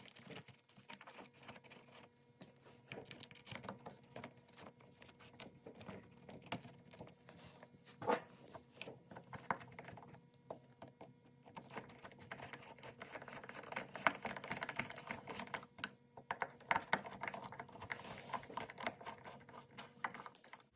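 Light clicks and taps of hard plastic parts being handled and fitted together while a leaf blower's pull-start assembly is put back together, coming thicker and a little louder in the second half.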